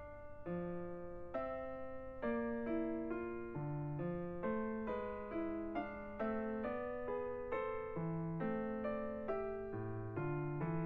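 Background music: soft piano or electric-piano notes played at a gentle, even pace.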